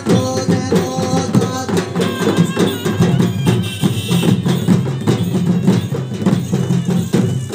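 Odia folk drum ensemble for Danda Nacha playing a fast, steady beat of drum strokes over a held low tone.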